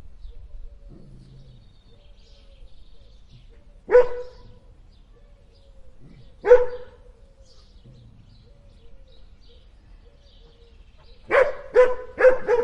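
A dog barking: one bark about four seconds in, another a couple of seconds later, then three quick barks in a row near the end.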